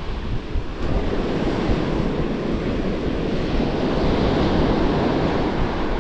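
Surf breaking and washing up the beach in a steady rush, with wind buffeting the microphone.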